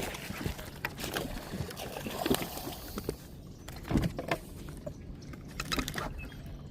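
Irregular knocks and clatter of handling gear in a small fishing boat on the water, the loudest about four seconds in, over a faint steady low hum.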